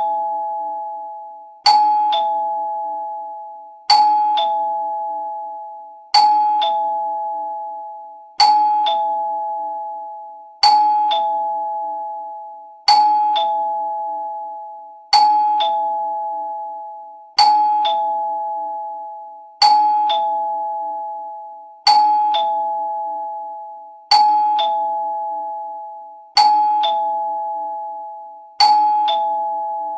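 Two-note doorbell chime ringing ding-dong over and over: a higher note, then a lower one about half a second later, repeating about every two and a quarter seconds, each pair ringing out before the next.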